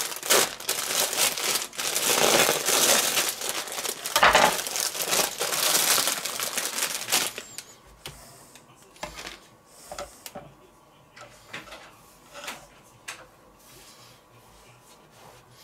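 Plastic bun packaging crinkling and tearing as it is cut open and the burger buns are pulled out. After about seven seconds it turns to quieter handling with a few light taps on the wooden cutting board.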